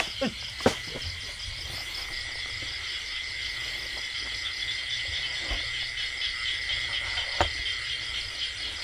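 Night insects chirring steadily in several overlapping high, pulsing trills, with a sharp click about two-thirds of a second in and another near the end.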